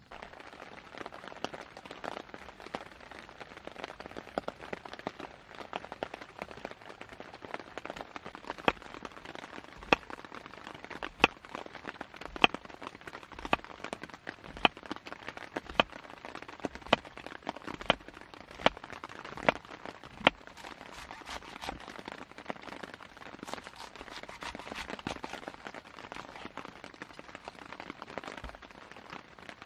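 Folding knife cutting vegetables on a wooden cutting board: slicing a cucumber into rounds, each cut ending in a sharp knock on the board, about one a second through the middle, then the crisper crunch of cabbage being shredded near the end.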